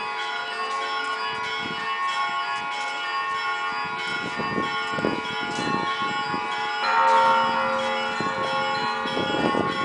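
Several church bells of a bell tower ringing together, their tones overlapping and ringing on, with a louder new strike about seven seconds in.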